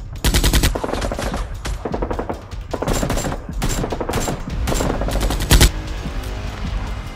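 Automatic gunfire sound effects, several rapid bursts of shots, with the loudest single shot about three-quarters of the way in.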